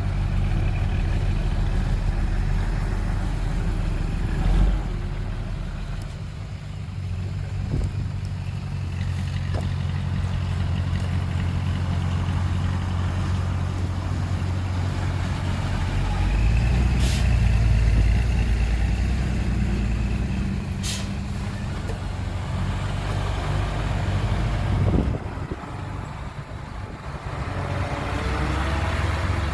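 Heavy diesel earthmoving machinery running: a bulldozer and dump trucks with steady low engine hum, the note getting heavier under load for a few seconds past the middle. Two brief sharp noises cut through partway along.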